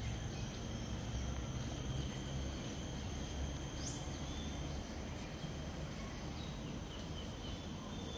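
Steady high-pitched insect buzzing, several thin unbroken tones from insects in the trees, over a low rumble that eases a little about halfway through.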